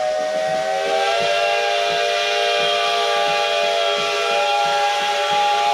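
Steam locomotive's whistle blowing one long chord of several tones, rising slightly in pitch about a second in, then cutting off abruptly.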